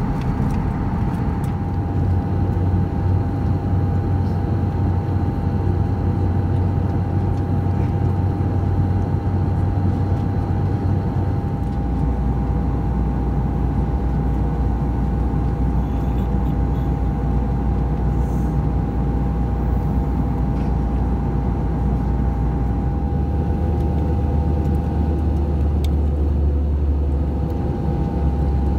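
Steady cabin drone of an Airbus A320 in flight, heard inside the cabin by a window: jet engine and airflow noise with a steady whine over a low hum. The hum shifts slightly in pitch about halfway through and again near the end.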